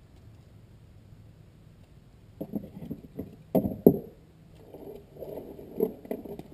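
Litter-pickup gear being handled: an irregular run of knocks and clattering with some scraping that starts after about two seconds of quiet, with two sharp knocks close together in the middle of it.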